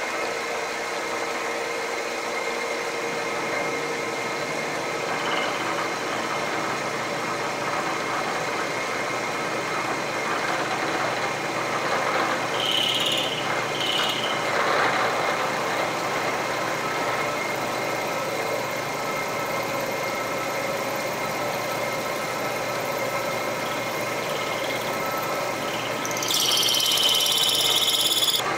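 Tree 2UVR milling machine spindle running steadily while a half-inch end mill cuts into a metal workpiece. The cutter gives two short high-pitched squeals about halfway through and a longer, louder squeal near the end.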